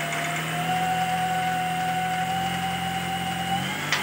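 High-speed Singer sewing machine driven by a Yuasa servo motor, running steadily at about 2,300 rpm with a hum and a high whine. It stops near the end with a sharp clack.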